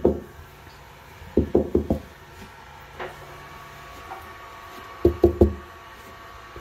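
Knuckles rapping on a dried setting-type joint-compound patch in drywall, in two quick groups of about four knocks. The knocks are solid, the sign that the patch has fully dried and hardened and is ready to sand.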